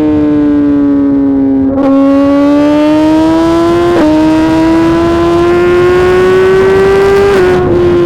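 Exhaust of a 2018 Suzuki GSX-R 1000 R inline-four through a full titanium SC-Project system, under way and pulling with the engine note rising gradually. There are short breaks about two and four seconds in, and the note drops near the end.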